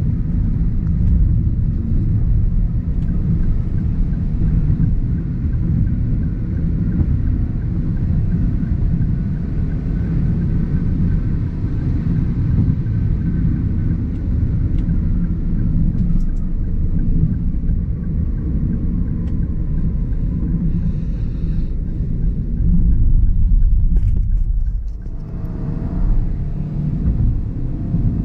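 Cabin noise of a 2023 Toyota Avanza 1.3 CVT cruising on a highway: a steady low rumble of tyres and engine, with faint steady tones above it. It swells a little about three-quarters of the way through, then dips briefly.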